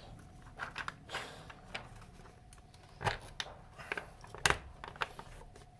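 Two halves of a 3D-printed PLA wheel-bearing housing being forced together by hand, giving scattered plastic clicks and creaks as the overlapping wall is pressed. A few louder cracks come about three seconds in and again near four and a half seconds.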